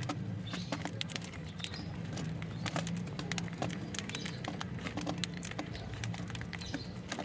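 Lovebirds in a cage: many short, sharp clicks and taps from the birds feeding, with a few faint chirps, over a low steady hum.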